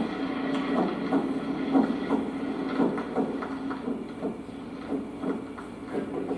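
Recorded heart sounds through a stethoscope: a steady run of lub-dub heartbeats over a constant low hum.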